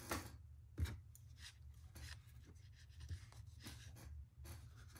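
Faint rustling and scratching of hands handling yarn and a crochet hook while knotting the yarn tail at the back of a small crocheted circle, with one sharper tap a little under a second in. A steady low hum runs underneath.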